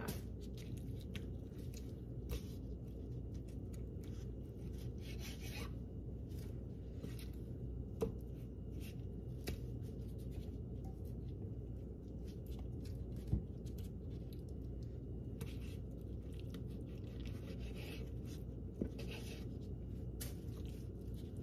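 Faint rubbing, scraping and scattered soft clicks of gloved hands handling and trimming fat from raw chicken thighs on a wooden cutting board, over a steady low hum. A few sharper clicks stand out about 8, 13 and 19 seconds in.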